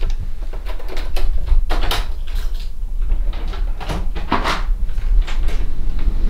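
A door being opened by its lever handle, then clicks and knocks from footsteps and the handheld camera being moved, over a steady low rumble.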